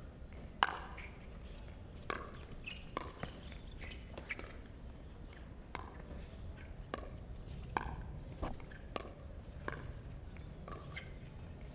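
A pickleball rally: paddles striking the plastic ball in a string of sharp pocks, roughly one every half second to a second, some quicker in pairs.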